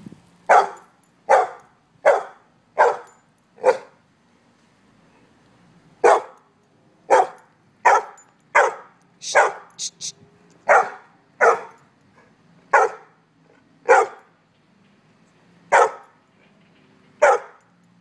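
A pit bull-type dog barking in a long run of single, evenly spaced barks, about one a second, with a pause of a couple of seconds about four seconds in.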